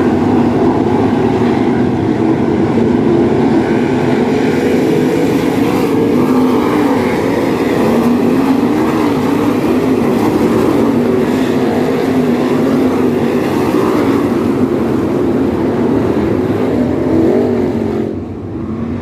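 A field of winged dirt sprint cars running laps. Their V8 engines overlap and rise and fall in pitch as the cars pass and work through the turns. The sound drops off suddenly near the end.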